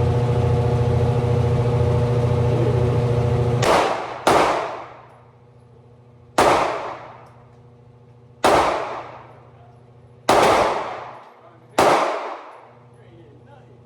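A steady low hum, then six gunshots fired one at a time. The first two come close together, and the rest follow about two seconds apart. Each shot trails off in a ringing echo.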